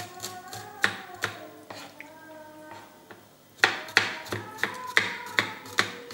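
Kitchen knife slicing garlic cloves on a wooden cutting board: sharp knocks of the blade on the board, a few spaced ones at first, then a quicker run of about two to three a second from a little past halfway.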